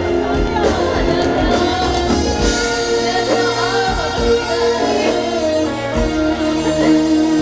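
Trot song performed live: a band accompaniment of held keyboard-like tones with a voice singing over it.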